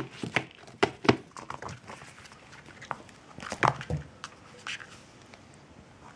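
A kitten at play: a string of sharp knocks, taps and light rustles as it bats and pounces on small toys on a carpeted floor and against a plastic box. The loudest knocks come at the very start and about three and a half seconds in, and the sounds thin out over the last two seconds.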